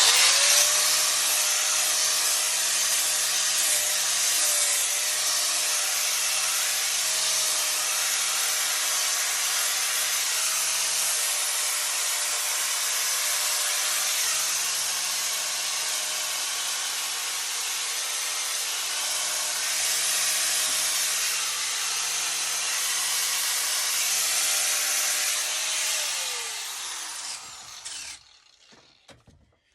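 Angle grinder running steadily while sanding driftwood: a motor whine under a hiss of abrasive on wood. About 26 seconds in it stops cutting and the whine falls away as the grinder winds down.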